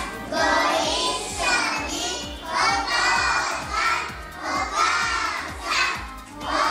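A group of young children chanting together in unison, in phrases of about a second each with short breaks between: the group greeting said before a meal.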